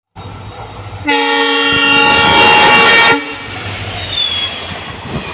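Indian Railways diesel locomotive running as it approaches and passes, with its horn blown once for about two seconds, starting about a second in and cutting off sharply.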